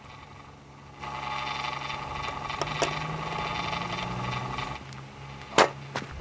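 Batting-cage pitching machine whirring steadily for a few seconds, with a small click partway through, then one sharp, loud impact near the end.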